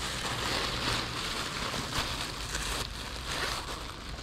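Thin plastic wrapping crinkling and rustling as a handbag is handled inside it.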